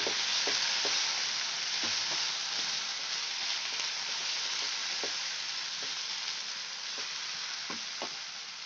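Julienned vegetables and sauces sizzling in a hot nonstick wok on high flame while being stir-fried with a spatula, a steady hiss with scattered soft knocks of the spatula against the pan.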